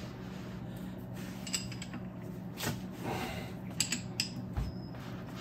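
A few scattered light metallic clicks and clinks of a hand tool against the gears and housing of a Triumph TR6 differential, with a dull thump a little after four and a half seconds, over a steady low hum.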